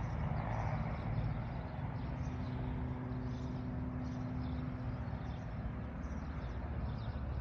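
Low, steady outdoor rumble, with a faint steady hum for a few seconds in the middle.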